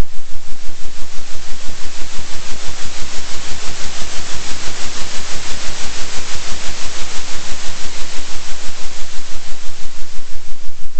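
Synthetic noise pulsing steadily in loudness about three times a second, a 3 Hz oscillating sound track. The hiss grows somewhat brighter through the middle, over a faint steady low hum.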